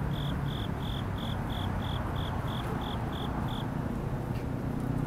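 A regular series of short, high-pitched chirps, about three a second, that stop about three and a half seconds in. Under them runs a steady low hum of city background noise.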